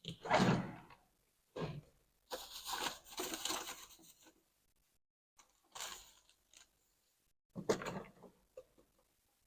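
Hands working a thin jumper wire and small tools: about five short, noisy scrapes and rustles with quiet gaps between, the longest lasting about two seconds.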